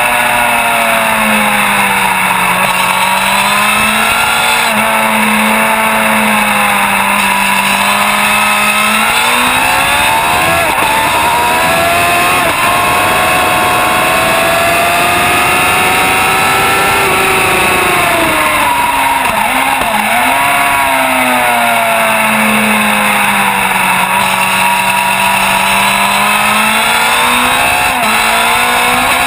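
Racing motorcycle engine running hard, heard from onboard. The revs climb through the gears, drop with quick downshifts about two-thirds of the way in, then rise again near the end. Loud wind rush over the microphone throughout.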